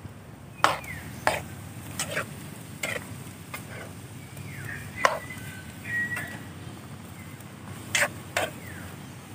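A cooking utensil knocking and scraping against a pot during stirring: about a dozen irregular clicks and clanks, over a steady low background noise.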